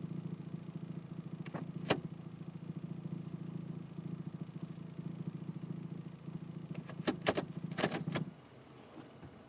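2007 Toyota Tacoma PreRunner idling in drive with a low, rapidly pulsing vibration drone. A new exhaust manifold gasket has not cured it, and a worn transmission mount has been suggested. A few sharp clicks come near the end, and then the drone stops abruptly.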